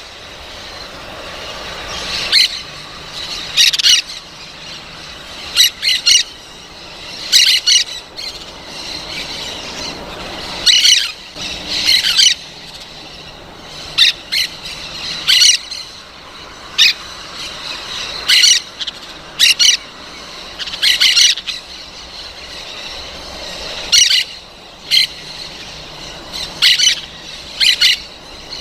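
Parrot squawking: short, loud calls repeated every second or two, some in quick pairs.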